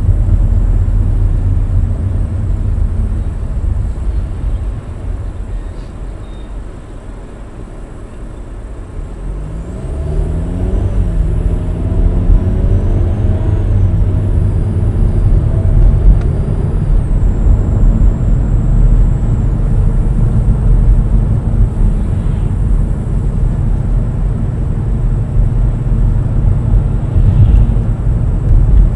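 Car driving on a paved road, heard from inside the cabin: a steady low rumble of road and engine noise. It grows quieter for a few seconds, then louder again from about ten seconds in, when an engine note rises and falls.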